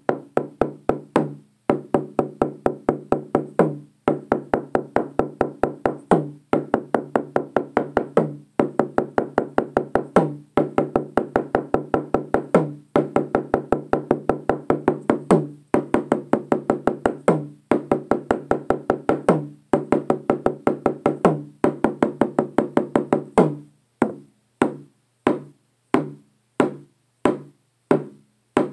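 Hide-headed hand drum struck with a stick beater in a fast steady beat, about five strokes a second in short phrases, each stroke ringing with a low tone. For the last few seconds it slows to single strokes, about two a second.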